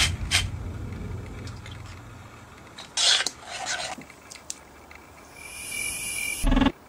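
A pepper mill grinding over a pot of soup, then a spoon scraping in the pot.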